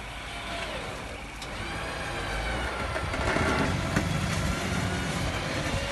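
Vehicle engines running during a winch recovery, with a 9,500 lb Mongrel Off Road electric winch hauling a stuck ute out of a sandy creek line. The sound grows louder from about two seconds in, with a faint whine that shifts in pitch.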